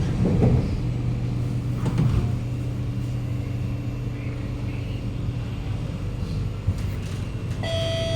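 Kawasaki Nippon Sharyo C751B metro car interior while moving off: a steady low hum from the running gear, with a couple of thuds in the first two seconds. A steady ringing tone starts near the end.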